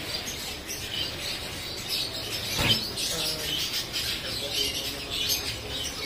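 Caged budgerigars chattering with many short, high chirps overlapping, and a single knock about halfway through.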